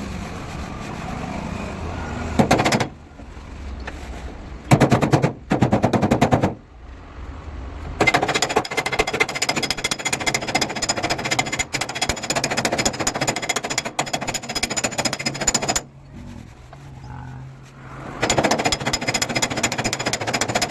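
A power tool rattling in bursts of rapid strokes: a few short bursts, then a long run of about eight seconds, a pause, and another run near the end.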